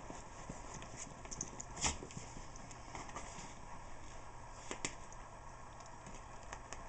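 Two Yorkshire terriers scuffling in a tug of war over a toy on carpet: scattered soft taps and scrabbling of paws and toy, with two louder knocks about two seconds in and again near five seconds.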